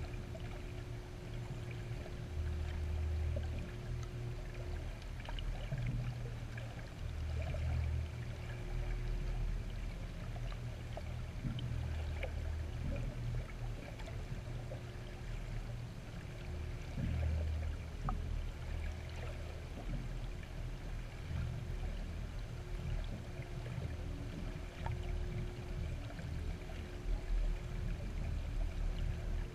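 Underwater ambience heard through a GoPro's waterproof housing: a low, muffled rumble of moving water that swells and fades irregularly, with a faint hum that comes and goes and scattered small ticks.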